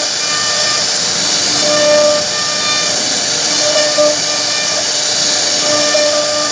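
CNC router cutting wood: a steady high hiss from the spindle and cutter, with whining tones that come and go every second or so as the machine moves.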